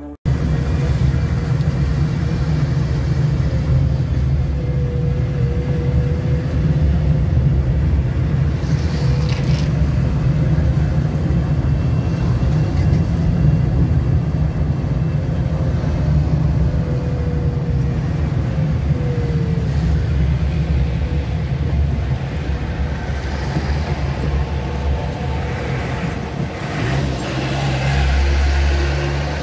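Steady road noise from inside a moving car: engine and tyre rumble with a deep low drone, swelling a little near the end.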